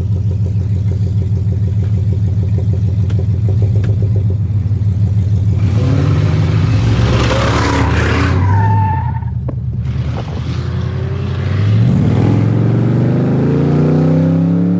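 Car engine idling steadily, then revved: about halfway in the sound swells into a loud rush with a brief whistle, drops back, and climbs in pitch again near the end.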